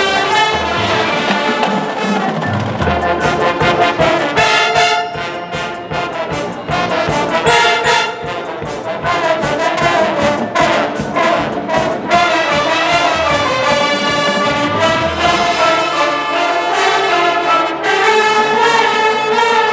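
High school marching band playing its field show, a full brass section with trombones and trumpets carrying the melody over drums.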